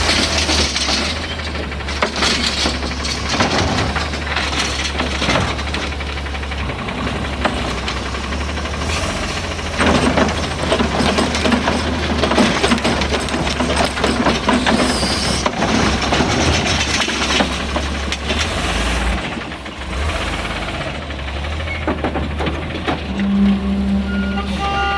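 Heil Rapid Rail side-loading garbage truck running on its natural-gas engine, with repeated clattering and banging as the automated arm grabs and dumps carts.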